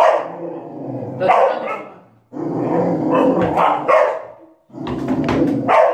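A dog barking protectively at a man facing a child, in several bursts, one of them running on for about two seconds in the middle.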